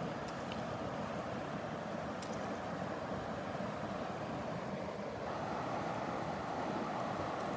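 Creek water rushing over a rocky riffle: a steady, even rushing.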